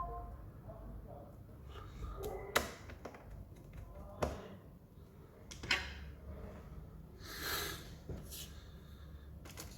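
A few sharp clicks and knocks, roughly a second and a half apart, from objects being handled and set down on a workbench, followed a couple of seconds later by a short hiss, over a low steady hum.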